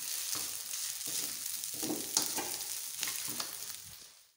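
Fried rice sizzling in a wok while a spatula stirs and scrapes it around the pan in repeated strokes. The sound fades out near the end.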